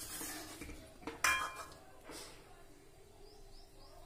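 Metal ladle stirring thick curry in a metal pot, with one sharp ringing clink of the ladle against the pot about a second in and a softer knock a second later.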